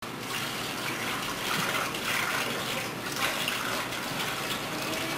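Water running from a kitchen tap into a sink while dishes are washed by hand, a steady rush with small changes as the water hits the dishes.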